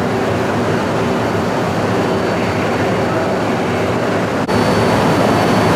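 Steady rushing hum of a Shinkansen train at the platform, with a low drone running under it. About four and a half seconds in it cuts abruptly to slightly louder, similar platform noise with a faint thin high tone.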